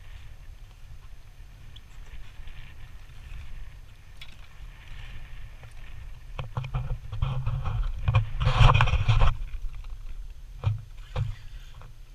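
Water slapping against the hull of a drifting small fishing boat over a steady low rumble. About two-thirds of the way through, a louder crackling, rushing noise builds and peaks for about a second, followed by a couple of sharp knocks.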